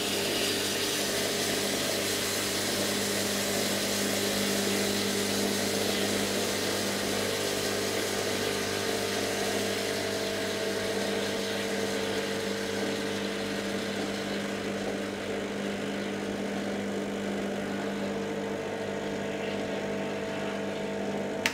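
Rancilio Silvia V6 espresso machine's vibratory pump humming steadily while hot water gushes and hisses out of the group head onto the drip tray. This is a cooling flush to bring the boiler down from steaming temperature to brewing temperature, and the water is still hot enough to throw off lots of steam. The pump cuts off at the end.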